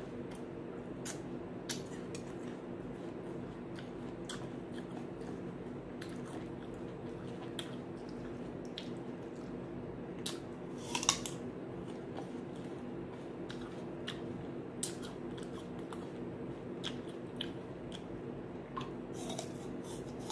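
Crisp crunches and mouth sounds of a person biting and chewing raw green apple slices, at irregular intervals, the loudest crunch about eleven seconds in. A steady low hum runs underneath.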